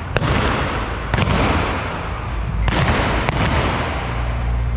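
.45 caliber pistol firing black-powder mounted-shooting blanks from horseback: four sharp shots at uneven spacing, the first two about a second apart and the last two about half a second apart. Each shot echoes around the indoor arena.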